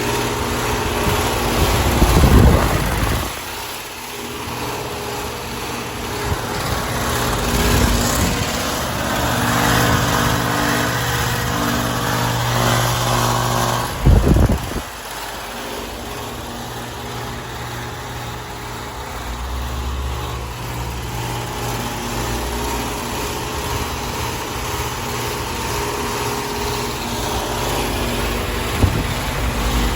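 Residential heat pump outdoor units, a 1994 Bryant Reliant with a reciprocating compressor and a 2009 Carrier with a Copeland scroll compressor, running in cooling mode: a steady compressor hum under condenser fan noise. Two brief low rumbling surges come about 2 seconds and 14 seconds in.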